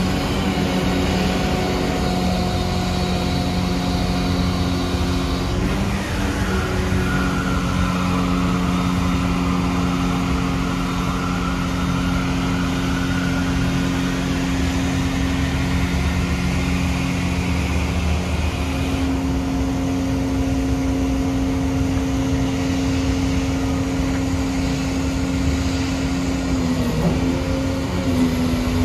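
The 240 hp Cummins ISB in-line six-cylinder diesel of a rear-loader garbage truck running steadily at idle while driving the body's hydraulics, which lower the tailgate. Its drone changes note about six seconds in and again near twenty seconds, with a faint rising whine in between.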